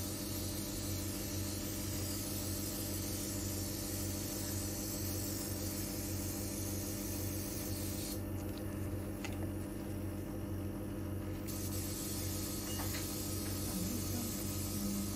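Steady low electrical hum over a constant hiss, with a couple of faint ticks.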